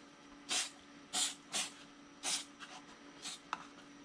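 CA glue accelerator sprayed from an aerosol can in a series of short hissing spritzes, about five strong ones, curing the cyanoacrylate glue.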